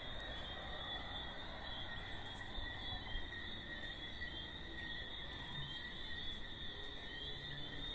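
Steady chorus of night insects such as crickets, a continuous high trill with a second, fainter band about an octave lower and small chirps flickering through it.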